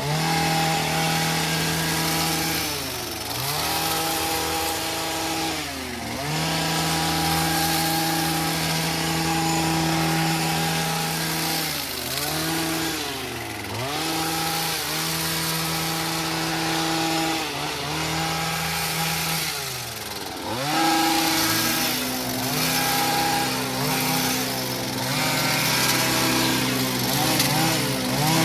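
Small engine of a handheld power tool such as a chainsaw or trimmer, revved up and held at high speed for a second or two at a time, then eased off and revved again over and over. About three-quarters of the way through, a second engine joins at a steady, lower pitch.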